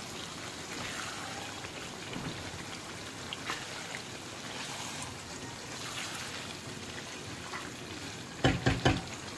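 Chicken pieces frying in a thick onion-tomato masala in a pan, a steady crackling sizzle. A few thumps come near the end.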